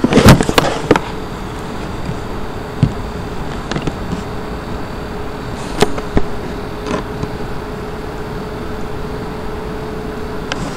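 Steady background hiss with a faint steady hum, broken by a few scattered sharp clicks, with several loud clicks right at the start.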